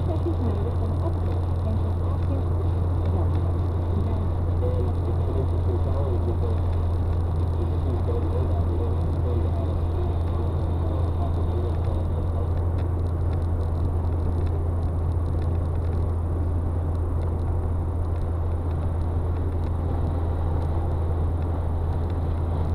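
Car driving steadily at highway speed, heard from inside the cabin through a dashboard camera: a constant low vibration hum with road and engine noise.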